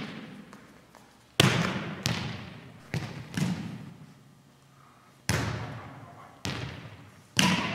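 Volleyballs being struck and hitting the gym floor: about seven sharp slaps and thuds at uneven intervals, each ringing on in a long echo.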